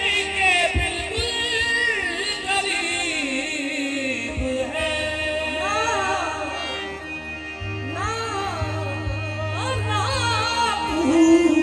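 Live qawwali: a lead singer's ornamented vocal runs sliding up and down over a steady harmonium drone, with hand-drum strokes underneath.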